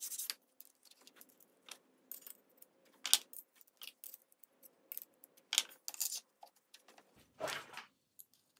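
Aluminum T-track, its stop and a tape measure being handled and set down on a workbench: scattered light metallic clicks and knocks, with a few louder ones in the second half.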